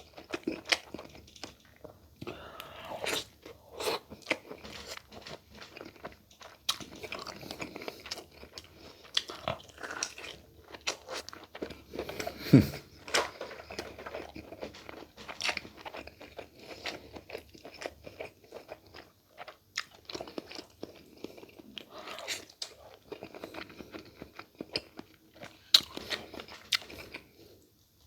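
Close-miked eating sounds: irregular chewing, biting and crunching with wet smacks, from someone eating giant tiger prawn and laing.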